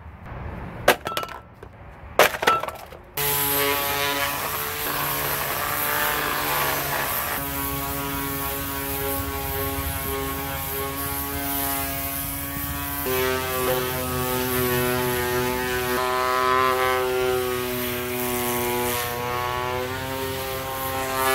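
A few knocks in the first three seconds, then an electric random orbital sander starts and runs steadily, sanding rust off the face of a pitted cast-iron brake rotor. Its pitch shifts slightly twice as it works.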